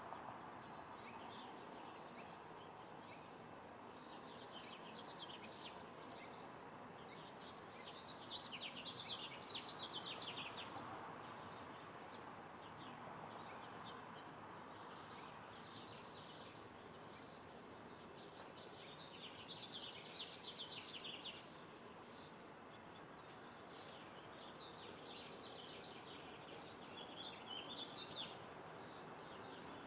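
Wren singing: short, rapid trilled songs repeated every few seconds, the loudest about eight to ten seconds in and again about twenty seconds in, over a steady faint background hiss.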